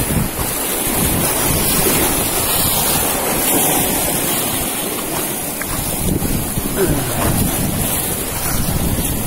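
Strong wind gusting over the microphone with rumbling buffets, over steady surf breaking on a sandy beach.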